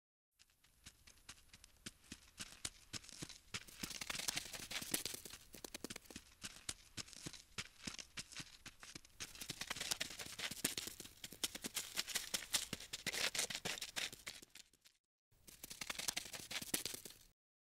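Scratching and clicking sound effect of an insect scuttling over a hard surface: fast, dry ticks in long stretches, broken by a short pause near the end.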